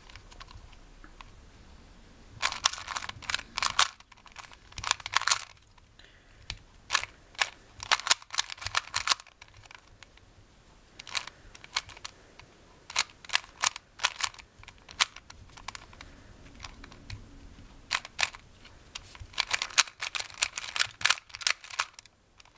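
Plastic 2x2 speed cube being turned by hand to solve it: quick flurries of clicking and clacking as the layers snap round, broken by short pauses.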